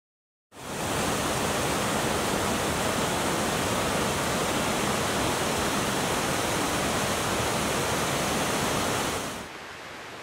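Rushing water running steadily, starting about half a second in. Near the end it cuts to a quieter, steady hiss.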